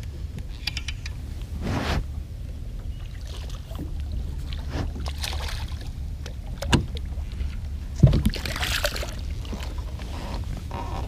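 A hooked bass splashing at the surface as it is reeled to the side of a bass boat, over a steady low wind rumble on the microphone. A sharp knock comes about two-thirds of the way through, and a second knock a second later is followed by a splashy rush.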